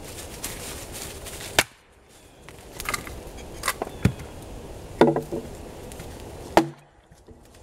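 A bushcraft axe splitting a short round of wood on a chopping log: a series of sharp chops, uneven and a second or so apart, three of them loud, with split pieces of wood knocking as they fall.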